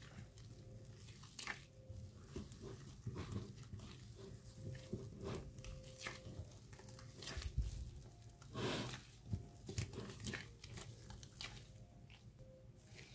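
Soft, sticky bread dough being kneaded by hand with plastic gloves in a bowl: faint, irregular squishing and slapping strokes, with some crinkling of the plastic gloves.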